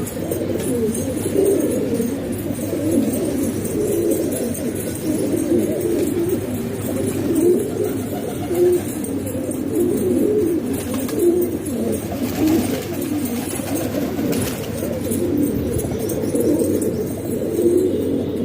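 Many domestic pigeons cooing together in a continuous, overlapping chorus of low calls.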